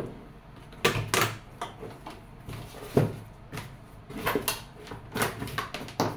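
Plastic and metal parts of a juice extractor being handled and set down on a table: a string of short, irregular knocks and clatters.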